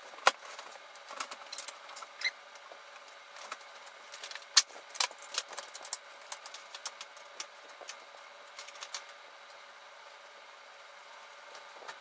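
Scattered sharp clicks, taps and light knocks of hard objects being handled during the microwave installation, with the cord, plug and unit being worked on. They come irregularly for about nine seconds, then stop, leaving a faint hiss.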